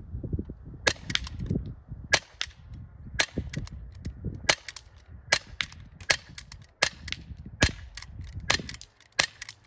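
Umarex Glock 19X CO2 blowback airsoft pistol firing a string of about a dozen sharp shots, roughly one a second.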